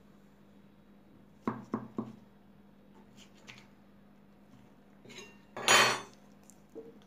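Kitchen utensils and dishes being handled: three quick clinks in a row about a second and a half in, then a louder noisy sound lasting about half a second near the end.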